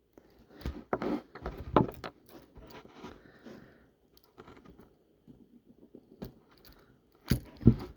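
Irregular small clicks, taps and clinks from handling a fishing lure's metal split ring and hook while trying to pry the ring open, the loudest clatter near the end.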